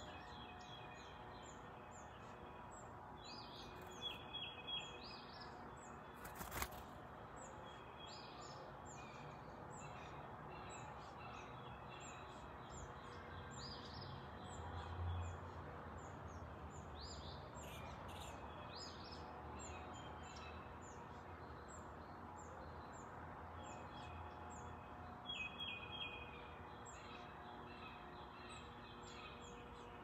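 Wild songbirds chirping and calling: many short high notes throughout, with a few quick runs of repeated notes, over faint steady outdoor background noise. A single sharp click about six and a half seconds in, and a faint low rumble that swells and fades around the middle.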